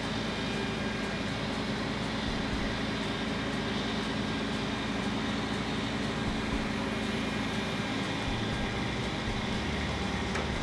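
Boom truck's engine running steadily, driving the truck-mounted crane's hydraulics as it lifts a precast concrete slab.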